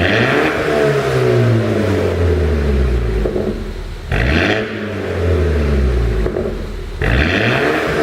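BMW 428i engine and exhaust being blipped three times, each rev rising sharply and then falling back, with crackling pops on the overrun as the revs drop: an exhaust pop-and-crackle tune.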